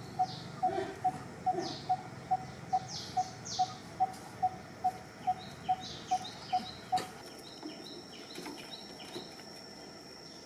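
A bird repeating one short note at a single pitch, evenly about two and a half times a second, for about seven seconds, with fainter higher chirps of other birds above it. A thin, steady high insect-like whine starts near the end.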